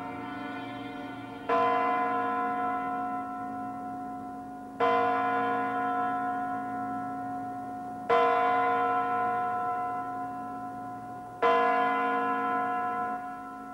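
Large clock bell of the Kremlin's Spasskaya Tower striking the hours of midnight: four heavy strikes about three and a half seconds apart, each ringing on and slowly fading before the next.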